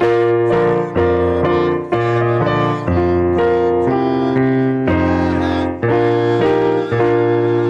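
Electric keyboard playing a hymn tune in full sustained chords, changing chord about once a second, with the last chord held near the end.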